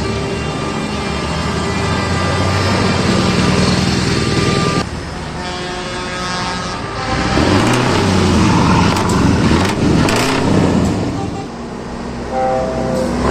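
Heavy trucks with open exhaust pipes passing and revving, with air horns sounding. A steady horn-like chord fills the first few seconds, the engine revving swells in the second half, and short horn toots come near the end.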